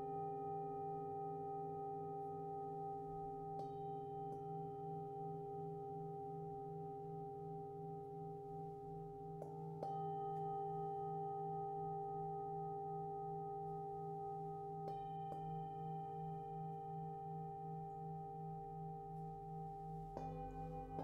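Struck metal sound-bath instruments ringing in long, slowly pulsing tones. Soft strikes come in pairs about every five seconds and keep the ringing going.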